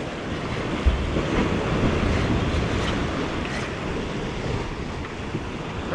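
Sea waves breaking and washing over shoreline rocks, with wind rumbling on the microphone from about a second in.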